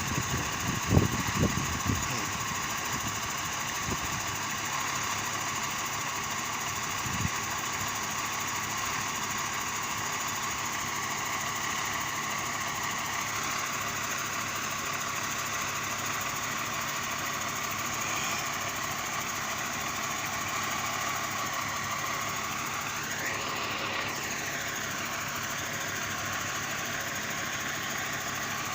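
Fire truck engine running steadily, a constant many-toned hum, with a few knocks in the first two seconds and a short rising-and-falling tone near the end.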